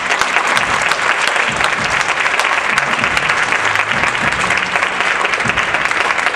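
A theatre audience applauding, a loud dense clatter of many hands clapping, over quieter music underneath.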